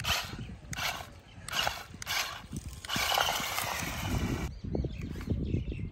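Remote-control double-sided stunt car driving over dry leaves and dirt. Its tyres crunch the leaf litter in a few short bursts, then in a longer run about three seconds in, with a faint motor whir.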